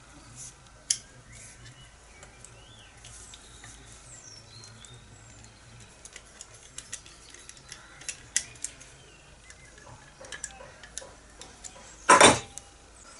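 Scattered light metallic clicks and clinks of a spanner and small metal parts being handled, with one louder clatter about a second before the end.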